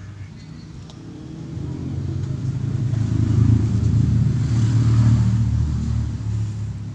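A motor vehicle's engine rumble passing by, growing louder from about a second in and fading away near the end.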